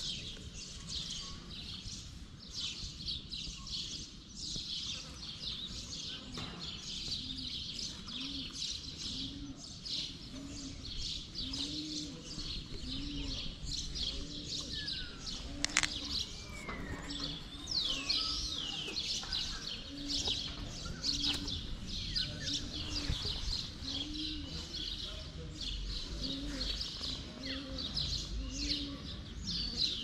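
A chorus of small birds chirping constantly, with a dove cooing over and over in a low voice. A single sharp click sounds about halfway through.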